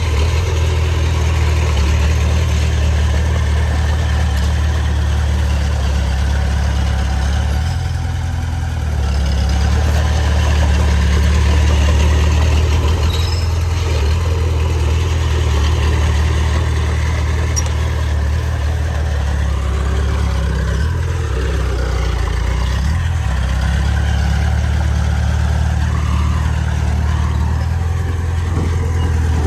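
Heavy earthmoving machinery engine running steadily with a deep, low hum, its pitch and load shifting briefly about a quarter of the way in and again past two-thirds of the way.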